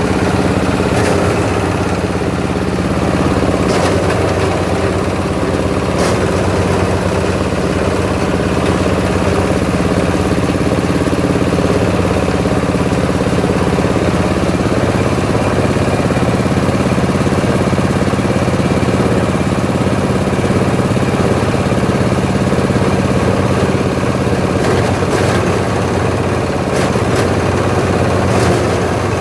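SM-60 coconut husk grinding machine running steadily, with a few brief sharp knocks near the start and again near the end.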